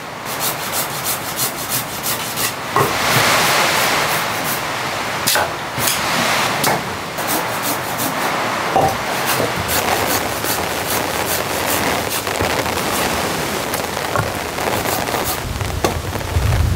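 Curved pruning saw cutting through wet branches: a run of rasping strokes, with a dull low thump near the end.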